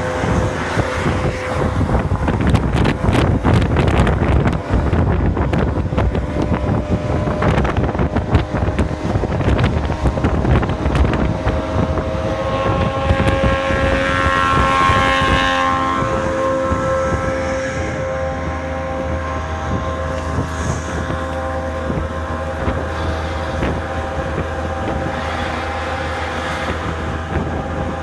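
Truck engine running on the road, heard from inside the cab with wind noise, and with many rattles and knocks in the first half. About halfway through the engine note rises, then it settles into a steady drone.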